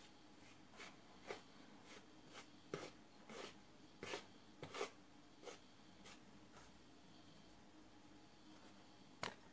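A hand stirring salt through dry sifted flour in a large plastic bowl: soft brushing swishes, about one or two a second, through the first half, then a pause before one sharper swish near the end.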